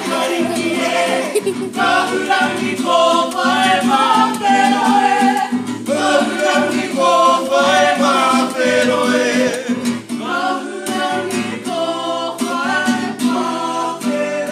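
A live song: several voices singing together over acoustic guitar.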